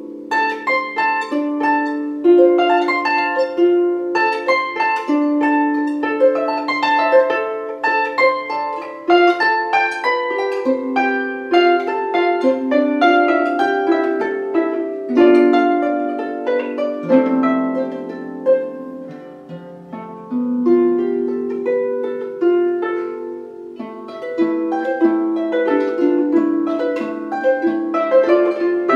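Solo Celtic lever harp: plucked strings in a slow classical piece, each note ringing on as low notes sound under a higher melody, with a softer passage past the middle.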